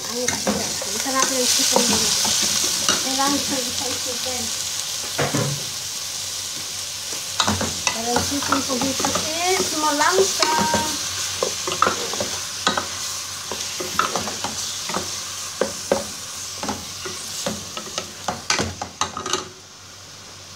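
Raw chicken pieces going into hot oil and sautéed onion in an aluminium pot, sizzling loudly as they are stirred with a wooden spatula, which knocks and scrapes against the pot. The sizzle cuts off near the end.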